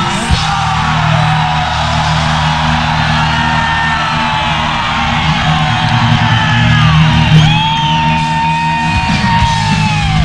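Power metal band playing live in a large hall, with singing over the band.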